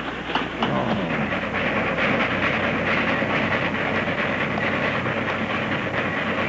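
A train running, with a dense clatter and hiss. About half a second in, a short cry with a wavering pitch sounds over it.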